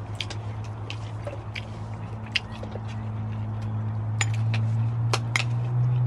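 Quad (ATV) engine running steadily, growing louder and rising slightly in pitch near the end as it comes closer. Scattered sharp clicks over it.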